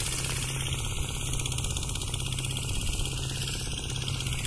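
An engine running steadily, with a constant low hum and a rapid, even beat.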